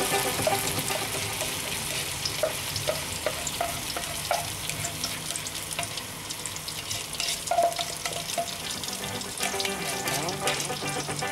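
Blended chili spice paste sizzling in hot oil in a wok as it starts to sauté, with a spoon scraping the last of the paste off a plate in short scrapes and clicks.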